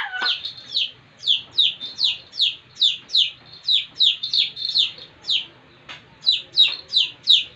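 Baby chick peeping over and over: a rapid run of short, high cheeps that slide downward in pitch, about three a second, with a brief pause near the end.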